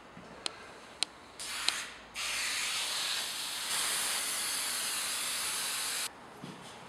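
Aerosol can of Trim-Tex 847 spray adhesive spraying glue onto plasterboard: a short burst, then one long steady hiss of about four seconds that cuts off suddenly. A few sharp clicks come before the spraying.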